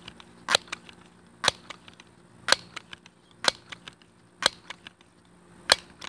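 Crosman 1377 multi-pump air pistol being pumped up for a 10-pump shot: a sharp clack about once a second as the pump arm is closed, six strokes, the gaps lengthening a little near the end, with fainter clicks between as the arm is opened.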